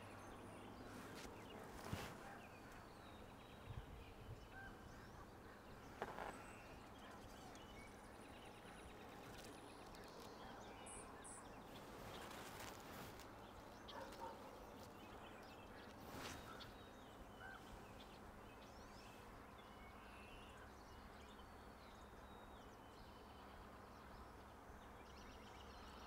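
Quiet marsh ambience with scattered faint, distant bird chirps and calls, and a few soft knocks.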